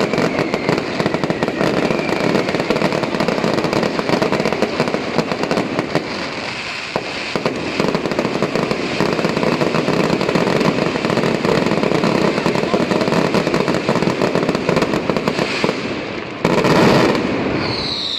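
Firecrackers going off in a dense, continuous crackle of rapid pops, with a louder blast about sixteen seconds in and a falling whistle just before the end.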